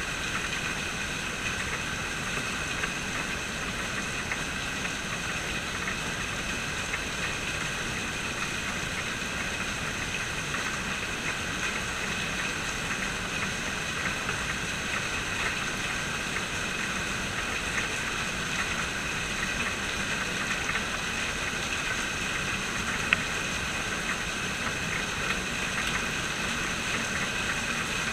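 Steady rain falling, a constant hiss made of many small drop ticks on hard surfaces, with one sharp click about two-thirds of the way through.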